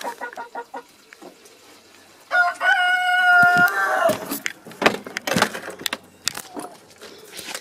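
A rooster crows once, a crow of about two seconds that holds a long note and falls off at the end. Short hen clucks come before it, and a run of sharp knocks and rustles follows.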